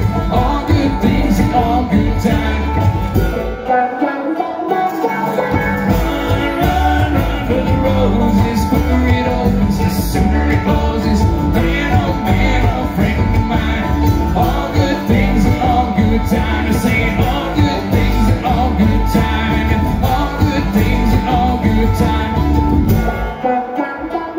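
Live bluegrass band playing an instrumental passage on banjo, acoustic guitar and upright bass. The bass drops out briefly about four seconds in.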